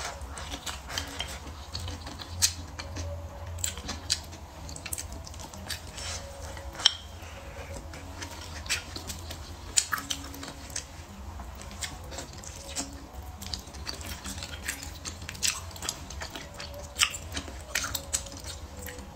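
Someone eating braised pork ribs: chewing and mouth smacks with many irregular sharp clicks, and wooden chopsticks clicking against a ceramic bowl now and then.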